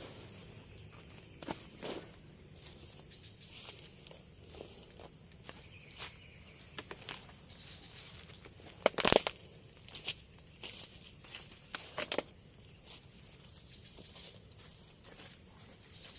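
A steady high-pitched drone of forest insects, over scattered short crunches and knocks of someone moving and working on the forest floor. The loudest crunches come in a cluster about nine seconds in.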